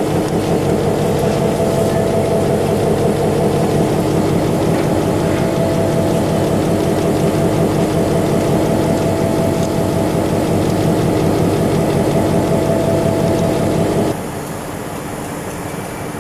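EMD SW1500 switcher's 12-cylinder diesel engine running steadily, with a thin steady whine through it. About 14 seconds in, the sound drops abruptly to a quieter engine hum.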